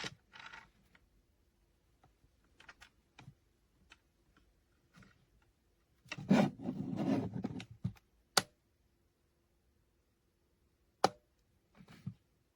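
Handling noise from small objects being moved: scattered light clicks and taps, a stretch of knocks and rustling lasting under two seconds about six seconds in, then two separate sharp clicks. A faint steady hum lies underneath.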